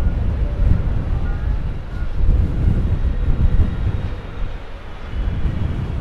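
Jet engines of a Boeing 777-300ER rumbling as the airliner touches down and rolls out on the runway, with gusty wind buffeting the microphone. The low rumble swells and fades unevenly.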